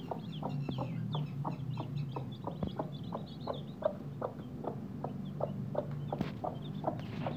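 Mother hen with newly hatched chicks, clucking in a steady run of short low clucks, about three a second. High, short, falling peeps from the chicks come in among the clucks.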